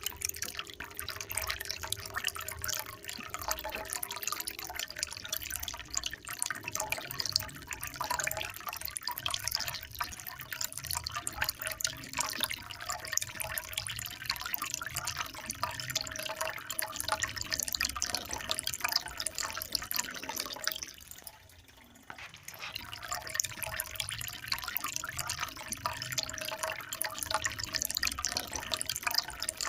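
Trickling water, a steady spatter of small splashes and drips, which drops almost away for about a second and a half near two-thirds of the way through before resuming.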